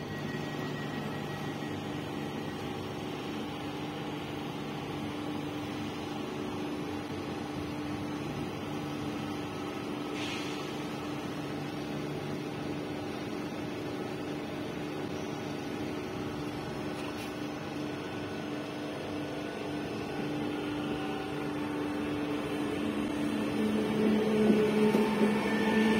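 PESA Elf electric multiple unit humming steadily with its electrical equipment running, with several steady tones. Near the end it grows louder and new tones come in as its traction motors start it moving.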